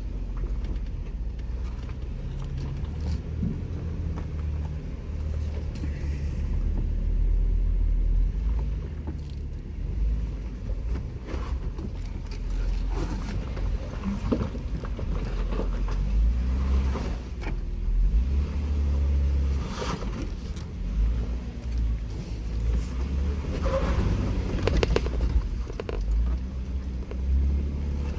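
Jeep Wrangler crawling along a rocky off-road trail: a low engine and drivetrain rumble that swells and eases, with scattered knocks and clicks, more of them in the second half.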